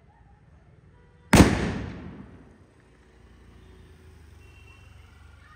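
One loud firecracker bang about a second in, its echo dying away over about a second and a half.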